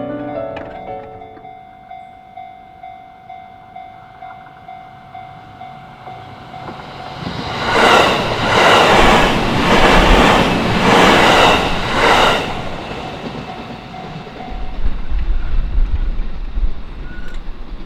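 Japanese railway level crossing bell ringing at a steady, even rate of about two dings a second. About eight seconds in, a train passes over the crossing, its wheels clattering in loud surges about a second apart for some four seconds, followed by a low rumble.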